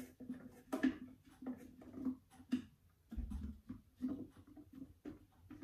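Mushroom pieces being pushed with a utensil from a bowl into a Thermomix jug: irregular soft taps and clicks of the utensil against the bowl and pieces dropping in, with a dull low thump about three seconds in.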